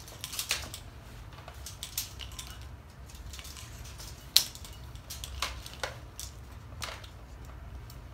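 A metal tape measure being pulled out and handled against the car's muffler and exhaust underneath: scattered, irregular clicks and taps, with one sharp knock about four seconds in. A low steady hum runs underneath.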